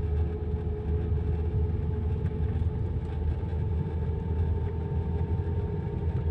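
A car driving, heard from inside the cabin: a steady low hum of engine and road noise.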